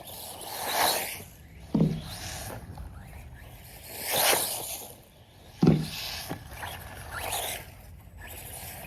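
ARRMA Typhon Grom RC buggy test-driving, its running noise swelling and fading three times as it passes back and forth, with two sudden thuds about two and six seconds in.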